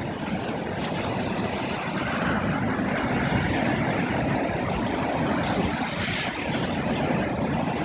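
Rough sea surf, waves breaking and washing up the sand in a steady wash of noise, with wind rumbling on the microphone.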